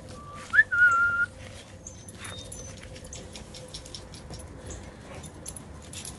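American bully puppies playing and wrestling on dirt and grass, with scattered scuffs and clicks of paws. Under a second in comes a high-pitched note that rises and is held for about half a second, the loudest sound here.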